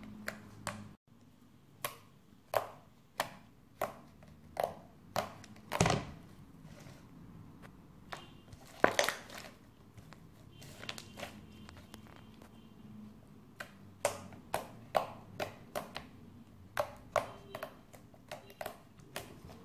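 Homemade slime, made with glue and boric acid, being squeezed and pressed by hand. It gives off short, sharp pops and clicks at irregular intervals as trapped air bursts.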